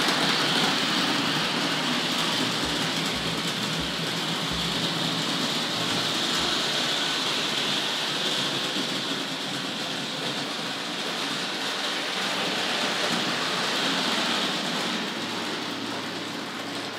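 Hornby Dublo A4 Pacific model locomotive, with its horseshoe-magnet motor, running on three-rail tinplate track with tinplate coaches: a steady whirring rattle of motor and wheels on metal rail, easing off near the end.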